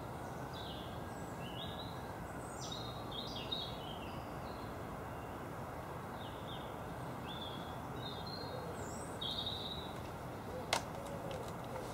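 Small woodland birds chirping and twittering over a steady background hiss, with one sharp click near the end from the large-format camera's lens shutter being worked.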